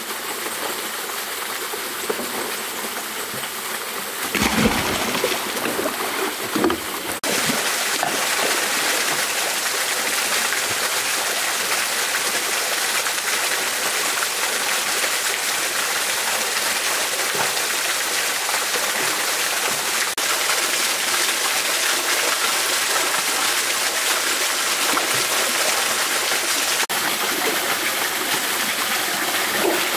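Steady rush of stream water and a small waterfall, with splashing in the water about four to seven seconds in.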